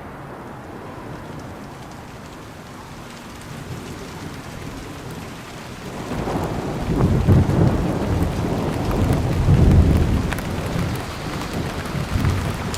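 Rain falling steadily with rolling thunder: deep rumbles build from about halfway through and swell twice before easing near the end.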